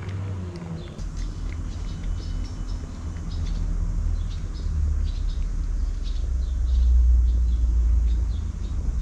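A cat crunching dry kibble, small crisp clicks several times a second, over a low rumble that swells about seven seconds in.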